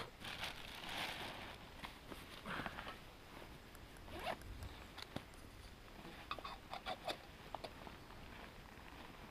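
A zipper drawn over about a second and a half, followed by brief rustles and a scatter of light clicks and taps from camp gear being handled.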